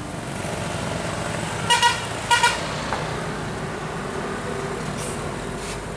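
Bus horn giving two short double toots about two seconds in, over steady traffic and engine noise.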